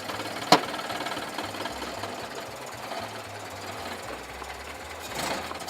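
Vintage car engine, hand-crank started, running with a fast, steady mechanical clatter. A sharp click about half a second in, and the sound swells briefly near the end.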